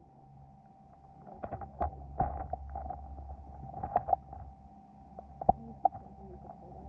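Underwater sound of a gravel stream bed recorded through a camera housing: a low rumble of flowing water that swells about a second and a half in, a thin steady hum, and scattered sharp clicks and knocks, the loudest about four and five and a half seconds in.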